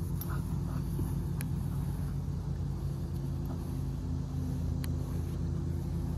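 Steady low hum of a motor running, with a few even tones, and two faint clicks, one about a second and a half in and one near five seconds in.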